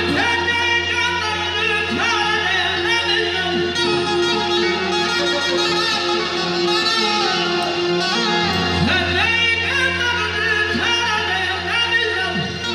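Azerbaijani mugham sung live through a microphone and PA, the voice running in wavering, ornamented melodic lines over a steady low drone and a held note, accompanied by a bowed kamancha and an accordion.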